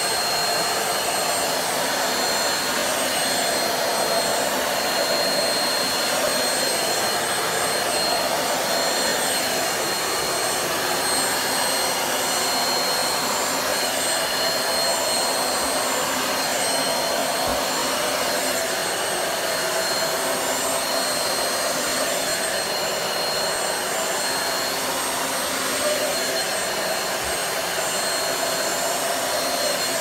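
Bissell Pet Hair Eraser corded handheld vacuum running steadily as it is worked over a carpet: an even rush of air with a thin high motor whine on top.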